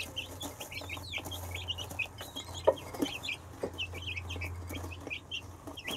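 A group of young silkie chicks peeping continuously, many short high chirps overlapping, with a few light pecking knocks at the feed dish, the sharpest about two and a half seconds in. A steady low hum runs underneath.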